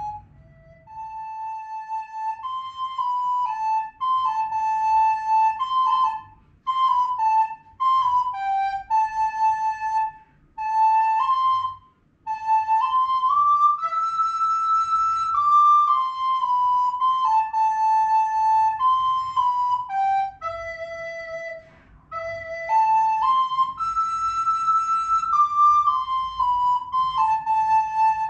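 A recorder playing a slow melody sight-read from sheet music: single held notes stepping up and down, in short phrases with brief breaks between them.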